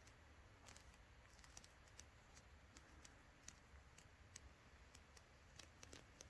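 Near silence: faint ambience with a low rumble and scattered small clicks at irregular intervals.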